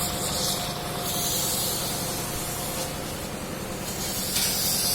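CO2 (MIG) welding arc on pipe giving a steady hiss that swells several times, loudest near the end.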